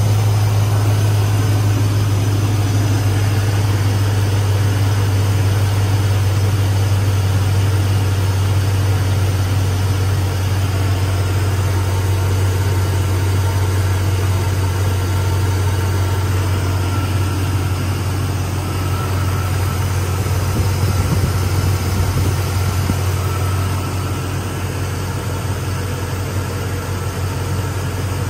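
A 2002 Chevrolet Silverado's 5.3-litre Vortec V8 idling steadily while it warms up after a cold start, heard close over the open engine bay. A strong low hum runs throughout and eases off slightly near the end.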